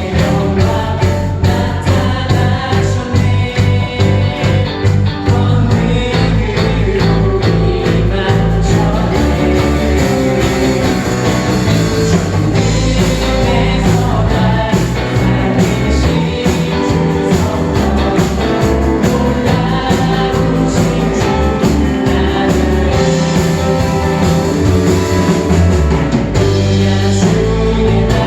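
Live church praise band playing a contemporary Korean worship song with singing over a steady beat.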